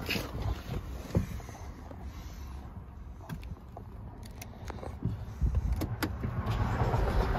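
A few sharp clicks in the cabin of a 2014 BMW 535i GT. Near the end, the start button is pressed and the car's turbocharged inline-six begins to crank and fire, with a rising low rumble.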